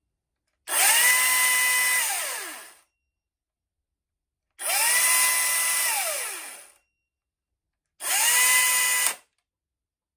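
Echo DCS-2500T battery top-handle chainsaw running free, not cutting, in three short trigger bursts. Each time the electric motor and chain spin up quickly to a steady whine, hold about a second, and then wind down in falling pitch. The last burst is the shortest. The saw gets up to speed fast and is not ridiculously loud.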